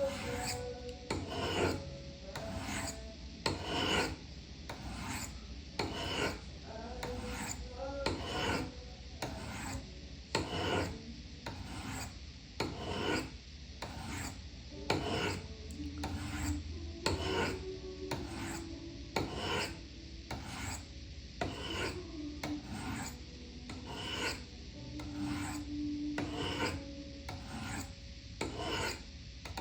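Knife blade being drawn along the ceramic rods of a Spyderco Sharpmaker. The rasping strokes repeat at about one a second.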